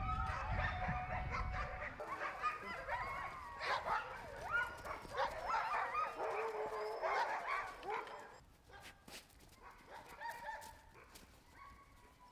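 A pack of sled huskies yipping, whining and howling together in an excited chorus. The calls crowd over one another for about eight seconds, then thin out to fainter scattered yips.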